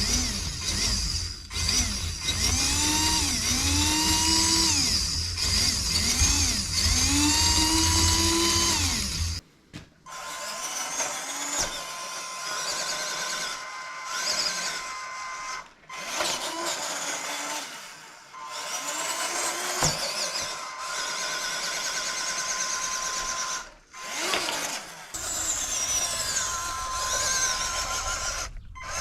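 A small electric motor whining. In the first part it is sped up and slowed again in repeated short runs. After an abrupt break it gives a steadier whine with a held tone, with a few brief dips.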